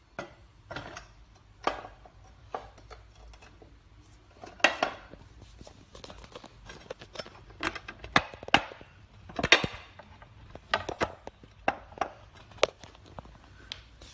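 Irregular clicks and knocks of window-wall frame parts being handled and fitted together, with an end cap being set into the upper subframe. About a dozen sharp knocks, the loudest around five, eight and nine-and-a-half seconds in.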